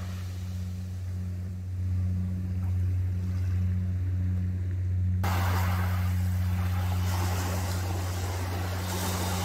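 Boat engine droning low and steady offshore. About five seconds in, a louder hiss of wind and surf comes in suddenly.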